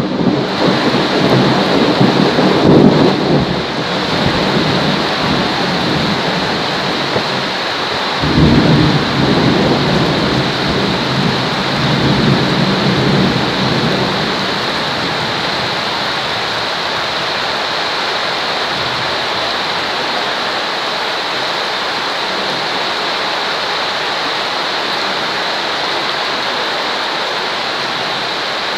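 Steady heavy rain hissing, with low rolls of thunder at the start and again after about eight seconds; the thunder dies away before halfway, leaving only the even sound of rain.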